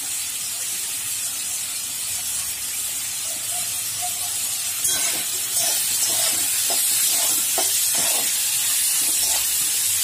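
Chopped onion, tomato, garlic, ginger and coconut sizzling in hot oil in a wok, a steady hiss of sautéing. About halfway through, a spatula starts stirring and scraping the pan in quick strokes, about two a second, and the sizzle gets louder.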